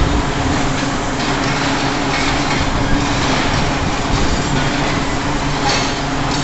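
Loud, steady heavy-machinery noise with a low electrical hum under it, and a couple of brief sharper sounds near the end.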